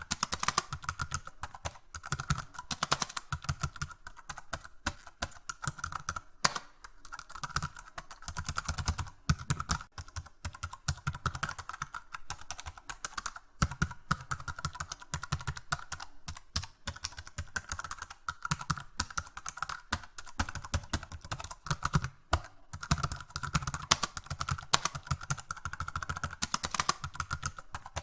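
Rapid, continuous typing on a computer keyboard, many key clicks a second in an uneven rhythm with brief pauses.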